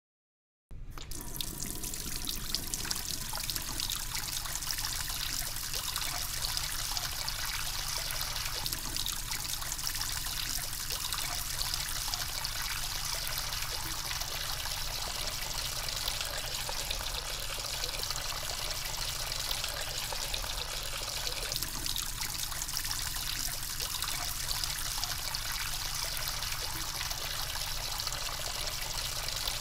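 Water running from a bathroom tap in a thin, steady stream into a concrete sink basin, starting abruptly under a second in.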